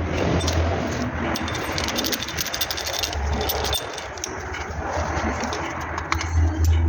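Clicks and clinks of metal tools and brake parts being handled, over a steady background noise with a low hum.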